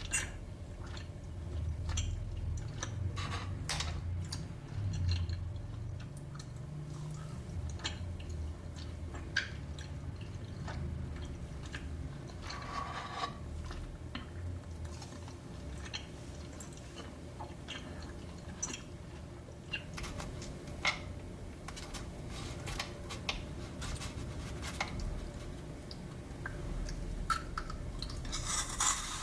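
Close-miked ASMR eating sounds: soft chewing of dessert, with scattered small clicks and wet mouth sounds.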